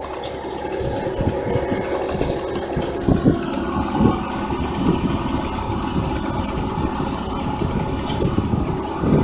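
An engine idling steadily, with scattered short knocks.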